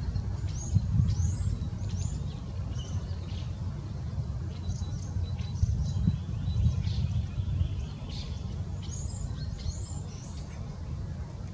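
Small songbirds chirping: short, high, falling notes, a quick cluster near the start and another near the end, over a steady low rumble.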